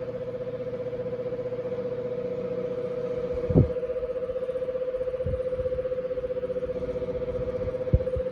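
Westinghouse six-blade electric fan running with a steady hum and a fast pulsing throb: the motor's rotor is rubbing on the stator because of a badly worn bearing. Two short knocks, one about three and a half seconds in and one near the end.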